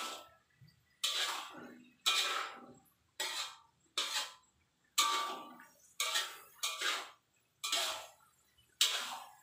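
A metal cooking utensil stirring food in a pan, scraping and knocking against the pan in strokes about once a second, each with a short metallic ring.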